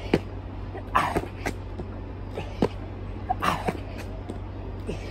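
A man's forceful breaths puffed out hard during burpees, twice, about two and a half seconds apart, with a few light taps of hands and shoes on the asphalt between them.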